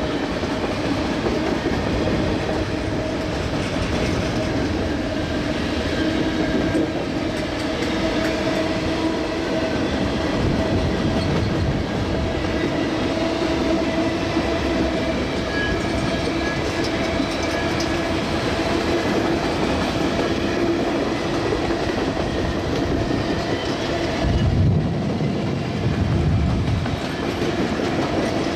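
Norfolk Southern diesel-electric freight locomotives working under load as they pull a train out of the yard, a steady engine drone over the rolling of the cars. A louder low rumble comes in for a couple of seconds near the end.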